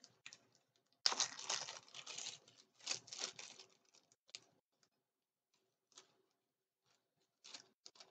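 Packaging being handled and unwrapped by hand: crinkling and rustling in two bursts over the first few seconds, then a few faint, scattered clicks and taps.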